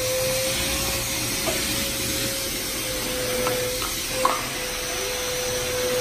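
Small wet/dry shop vacuum running steadily, its motor giving a constant whine, with a few short sounds over it about a second and a half and four seconds in.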